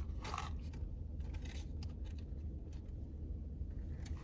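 Steady low hum of a car cabin with a few faint clicks and rustles, as a plastic iced-drink cup with a straw is handled.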